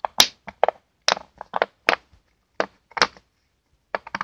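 Small rubber engine oil seals being picked up and set down on a hard tabletop: an irregular run of light clicks and taps, well over a dozen, with short pauses between them.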